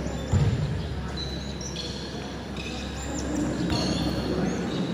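A volleyball being struck once with a dull thud about a third of a second in, then rubber-soled shoes squeaking sharply on the sports-hall floor as players move in the rally.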